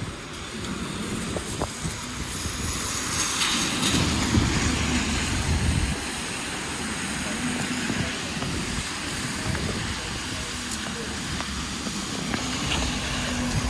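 City street traffic passing, with a vehicle's low engine rumble swelling for a couple of seconds about four seconds in.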